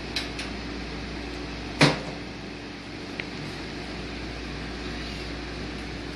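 A couple of light metallic clicks, then one sharp clank about two seconds in and a faint tick a second later, from tools and parts being handled during an engine teardown, over a steady low hum.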